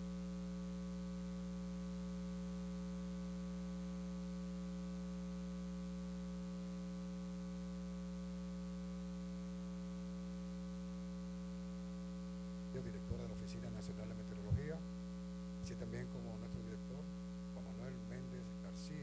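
Steady electrical mains hum in a microphone or mixer feed, a constant buzz made of several level tones. From about two-thirds of the way through, faint talk and a single soft knock come through under the hum.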